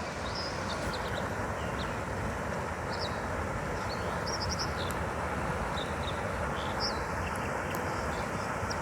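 Steady rushing of river water, with small birds chirping briefly now and then over it.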